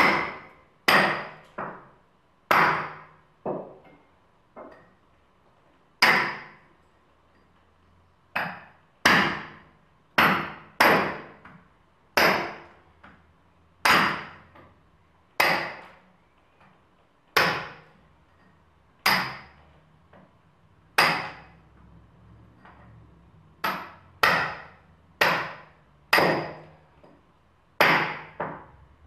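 A long series of sharp, hammer-like knocks on a hard object, each with a short ringing decay. They come irregularly, about one every second or two, sometimes in quick pairs.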